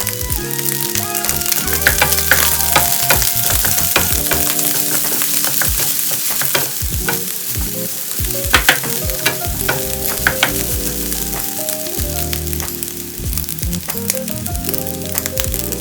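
Ham and potato fried rice sizzling in an oiled frying pan as it is stirred, with many sharp clicks of the spatula against the pan. Soft background music plays underneath.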